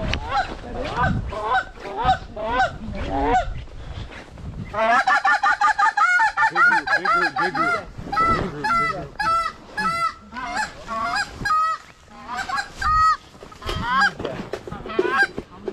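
Canada geese honking: a few spaced honks at first, then a dense, overlapping chorus of many honks from about five seconds in, thinning to scattered calls near the end.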